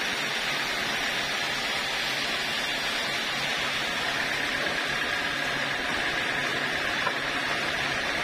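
Sawmill saw cutting lengthwise through an acacia log on the carriage: a steady hiss of the blade in the wood over the running machine, with a thin whine joining about halfway.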